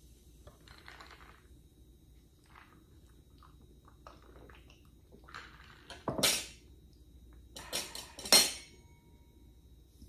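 Metal cake server and dishes being handled: soft rustling, then sharp clinks and clatter about six seconds in and again a couple of seconds later, the last knock the loudest.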